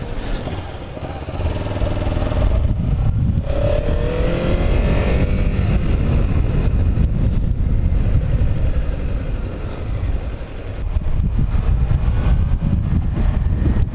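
Kawasaki Ninja 300's parallel-twin engine running under way, with wind rushing on the helmet microphone; about four seconds in the revs climb as it accelerates.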